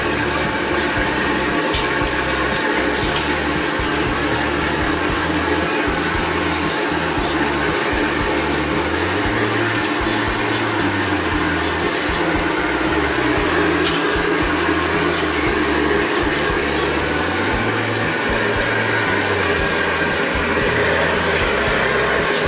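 Steady rushing of a high-pressure gas wok burner firing under a wok, over a low bass line of background music.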